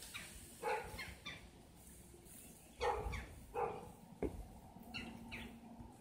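Footsteps crunching in cold snow, a step every half second to a second, with a sharp click about four seconds in.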